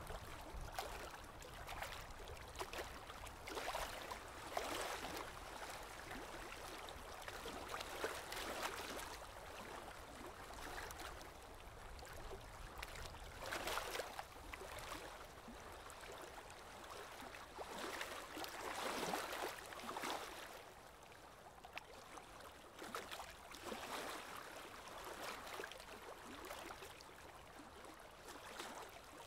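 Sheet of paper rustling and crinkling as it is folded and the creases pressed flat, in short irregular spells every few seconds.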